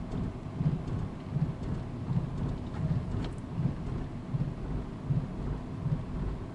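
Road and wind noise inside an electric car's cabin at highway speed, with a regular low thump repeating about every three-quarters of a second, starting suddenly right at the start.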